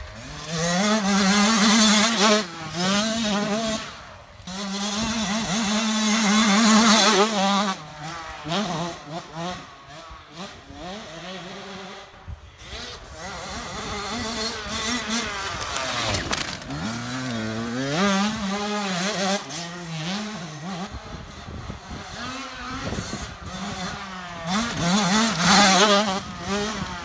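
Small dirt bike engine revving up and dropping back over and over as it is ridden along a woodland trail. It gets loudest as the bike comes close and passes by near the end.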